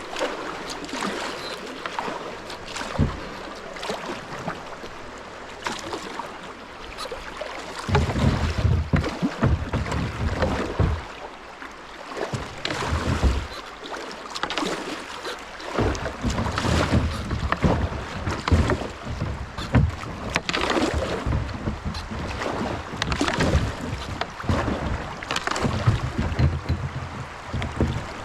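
Kayak being paddled down a shallow creek: paddle strokes splashing in the water, with irregular knocks and thumps against the hull.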